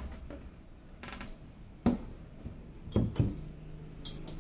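Handling sounds from a PC build: a handful of short, sharp clicks and knocks as parts and the metal case are set down and fitted, with two close together around the middle and a light tick near the end.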